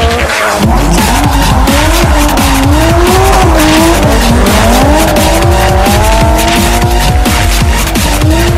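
Drift car's tyres squealing in long, wavering tones as it slides past, with the car's engine running, over loud background music with a heavy beat.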